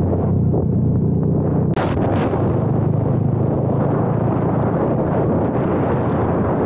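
Motorcycle engine running at steady cruising speed, heavily buffeted by wind on the rider-mounted microphone. Two short knocks about two seconds in.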